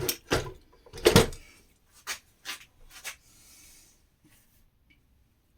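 Plastic housing of a Makita site radio being handled and eased apart: a run of knocks and clicks, the loudest about a second in, then a few lighter clicks and a brief scrape.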